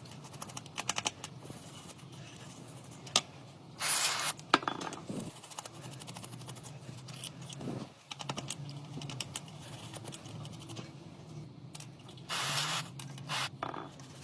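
Small hand tools clicking and scraping on a phone being restored. Two short hisses come about four seconds in and again near the end.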